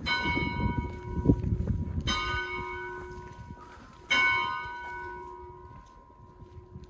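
A church bell struck three times, about two seconds apart, each stroke ringing out and slowly fading under the next.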